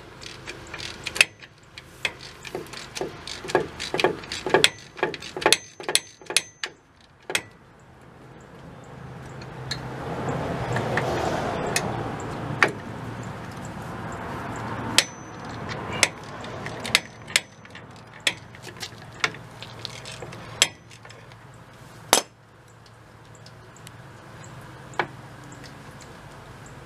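Hand wrench working the shoe guide bolts on a military truck's rear drum-brake backing plate: irregular metallic clicks and clinks, rapid for the first several seconds and then sparser. A broad rushing noise swells and fades midway.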